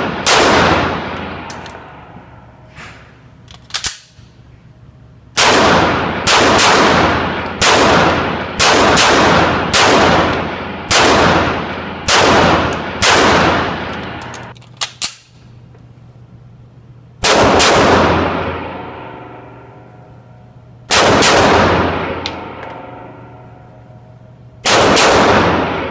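Shots from an Arsenal Firearms Strike One 9mm pistol firing 124-grain rounds. A quick string of about ten shots comes roughly one every 0.8 s, then three slower single shots about four seconds apart. Each shot has a long echoing tail.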